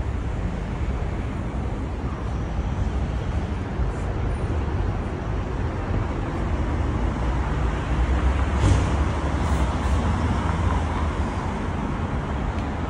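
Steady city street traffic noise, a rushing hum of passing cars, swelling briefly louder about nine seconds in.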